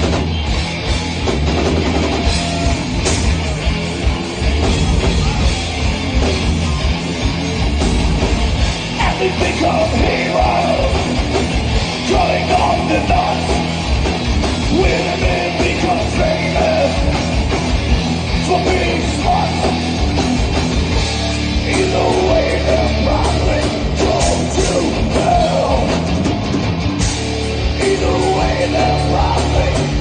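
Live heavy metal band playing loud: electric guitars over a drum kit, with sung vocals coming in about nine seconds in.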